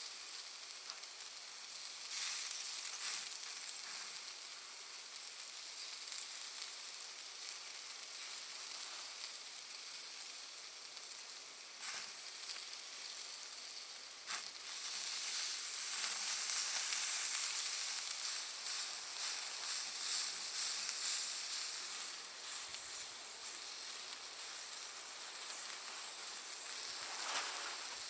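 Charcoal-and-wood bonfire burning with a steady high hiss and occasional sharp pops from the Iwate cut charcoal. The hiss swells louder for several seconds about halfway through.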